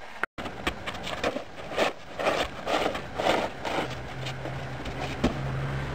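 Snow shovel pushed along snow-covered wooden deck boards, scraping in repeated strokes about two a second. A low steady hum joins in the background about four seconds in.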